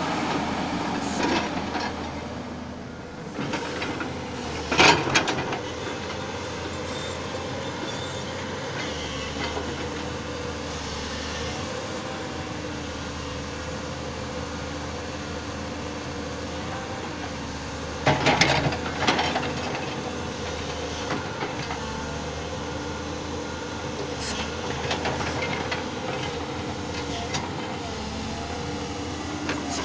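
Hyundai 450LC crawler excavator working: its diesel engine and hydraulics run with a steady hum and whine. Its bucket gives loud scraping clanks against the ground about five seconds in and again around eighteen seconds, with smaller knocks in between.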